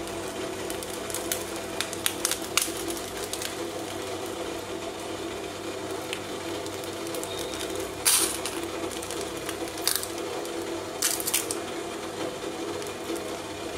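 Hand-worked metal idiyappam press squeezing rice-flour dough out as strings: scattered clicks and two short scrapes, over a steady hum.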